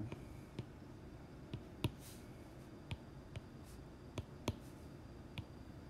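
Faint, sharp taps on an iPad touchscreen while writing by hand, about eight scattered clicks over a low room hiss.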